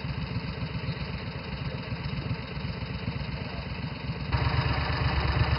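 Small utility-vehicle engine idling steadily with a low, even pulse, louder from about four seconds in.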